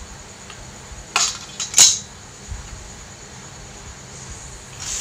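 Two sharp metal clinks about half a second apart, a kitchen utensil knocking against the aluminium kadhai of cumin seeds in oil. Near the end a hissing sizzle of hot oil starts up.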